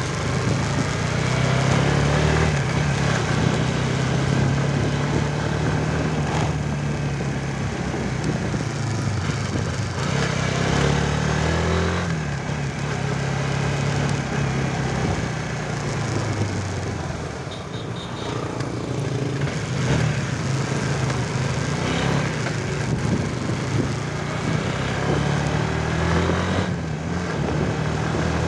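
Motorcycle engine running while riding, its pitch rising and falling several times with the throttle, over steady wind and road noise.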